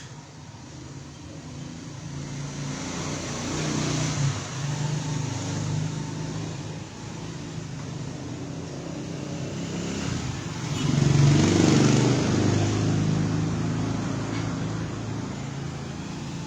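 Motor vehicle engines passing by, the engine noise swelling twice: loudest about four seconds in and again about eleven seconds in.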